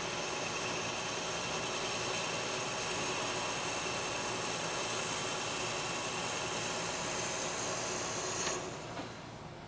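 Metal lathe running steadily, with a few steady high tones over the machine noise, then shut off about eight and a half seconds in.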